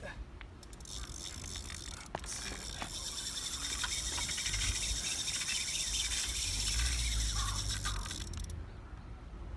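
A large spinning reel whirring with a fast, even buzz while a big tuna is fought on the line. It starts about a second in, grows louder in the middle and cuts off shortly before the end, over a low rumble of wind.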